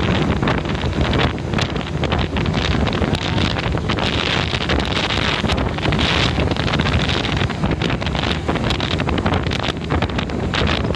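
Heavy wind buffeting the microphone on a moving vehicle, with constant crackles over a steady rumble of road and engine noise.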